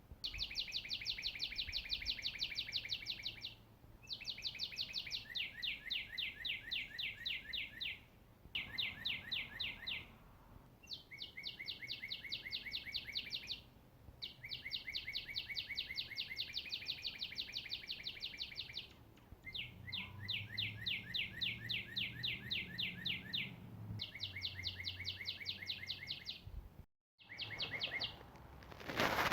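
A songbird singing one rapid, even trill after another, each trill a fast run of identical chirped notes lasting two to four seconds, with short pauses between. There is a low steady background hum.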